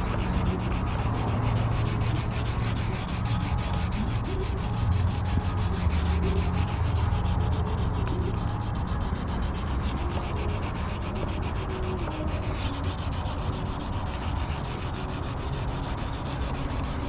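Hand wet-sanding of an oxidized plastic headlight lens: fine-grit sandpaper on a foam disc holder scrubbed back and forth with light pressure, a steady, continuous sanding sound.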